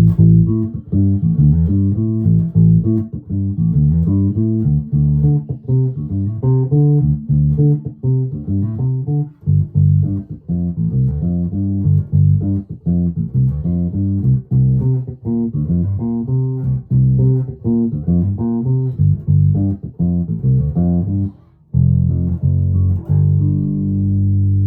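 1996 Alembic Epic four-string electric bass played on its neck pickup with bass and treble centred: a busy run of plucked notes, then a brief break and notes left ringing near the end.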